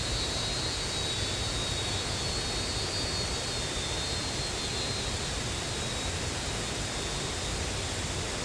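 Steady rushing of flowing water, an even hiss that holds the same level throughout.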